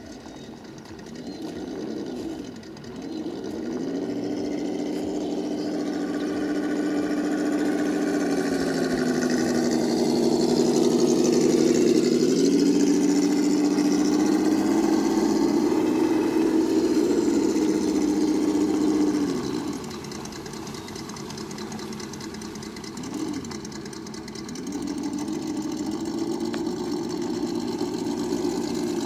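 Simulated truck engine sound played through an ESS-Dual sound module on a Traxxas TRX-4 Chevy RC truck, rising with the throttle. It climbs from idle to steady revs, drops back to idle about two-thirds through with a short blip, then revs up again near the end.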